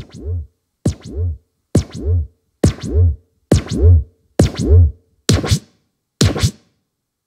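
Roland TAIKO-1 electronic taiko playing a sound from its Echo FX bank: eight strikes about one a second, each a sharp hit that turns into a sliding, swooping tone with a low boom just after it. The last two strikes are shorter.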